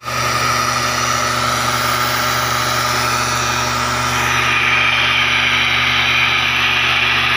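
Backpack mist blower's two-stroke engine running steadily, with the rush of air from its long blowing nozzle.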